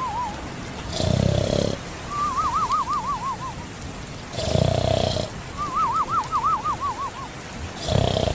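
Comic snoring in a steady cycle: a short rasping snore in, then a high wavering whistle that slides down on the way out, repeating about every three and a half seconds. Three snores and two whistles.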